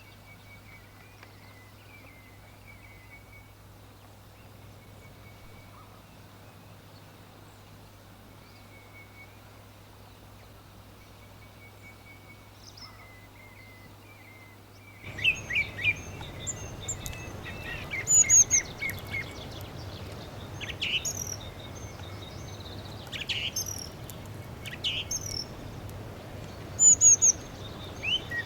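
Wild birds chirping and calling. For about the first half the calls are faint and sparse over a low steady hum; then the sound switches abruptly to a louder, busier chorus of sharp, high chirps and calls.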